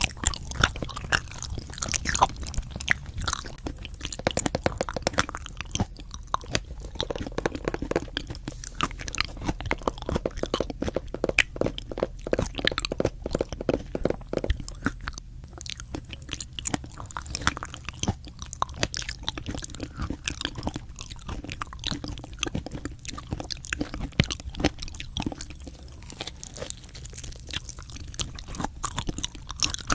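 Close-miked eating: someone chewing and biting into crunchy food, with a dense run of sharp, irregular crunches.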